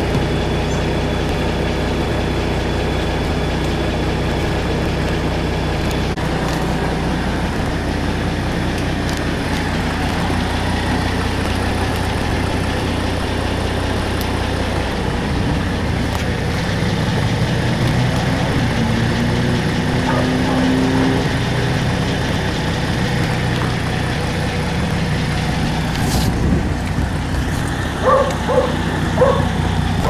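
An engine idling steadily, low and even. A few short pitched blips sound near the end.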